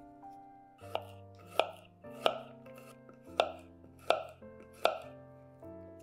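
Kitchen knife slicing garlic cloves on a wooden cutting board: six crisp cuts, roughly 0.7 s apart, starting about a second in, over soft background music.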